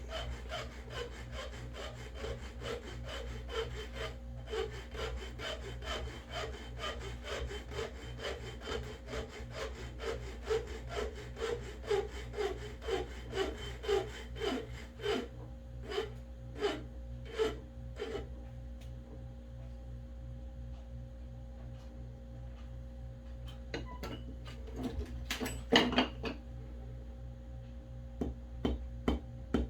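Hand file scraping back and forth across the end of a razor scale's metal pin, flattening it ready for peening: a steady run of strokes that stops about 18 seconds in. A few light clicks follow near the end.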